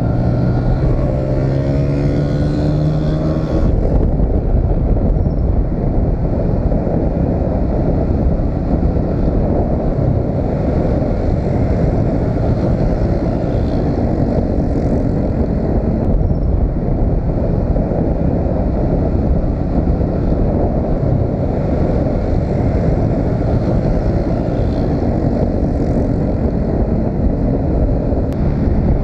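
Motorcycle riding at speed along a road: the engine's pitch climbs during the first few seconds, then settles into a steady rush of engine and road noise.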